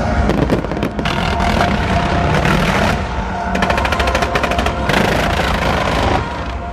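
Fireworks display going off: dense, continuous popping and crackling of bursting shells and mines. About halfway through comes a fast, even run of sharp reports, like machine-gun fire.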